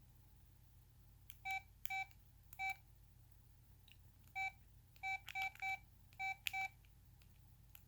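A Samsung Intensity III cell phone sounding nine short touch-tone style beeps, all at the same pitch and spaced unevenly.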